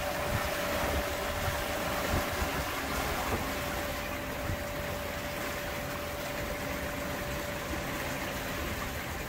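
Wind buffeting the microphone and water rushing past the hull of a sailboat under way, with a faint steady tone running through.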